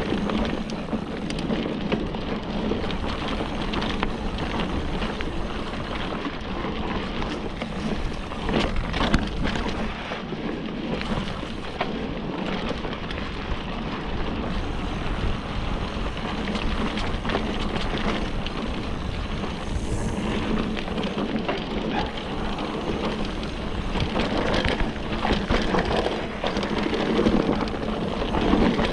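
Orbea Laufey mountain bike ridden down dry dirt singletrack: a steady rush of tyre noise and wind on the microphone, with frequent clicks and rattles from the bike over bumps and one louder knock about nine seconds in.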